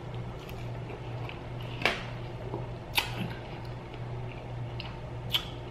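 A person eating off a plastic fork: wet chewing and mouth noises, with three sharp clicks about two, three and five seconds in.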